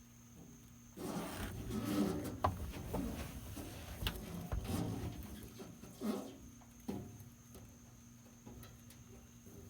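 Hands working in a toolbox: rustling with scattered clicks and knocks, starting suddenly about a second in and dying down after about seven seconds, as an adhesive LED strip light is handled and pressed into place.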